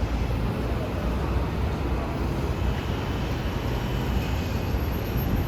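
Train in motion: a steady low rumble of running wheels and track noise.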